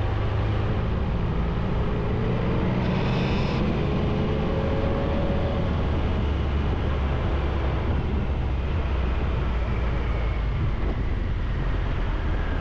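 Triumph Tiger 1200's three-cylinder engine running steadily under way, with wind and road noise on the bike-mounted microphone; its pitch climbs gently in the first few seconds. A brief hiss about three seconds in.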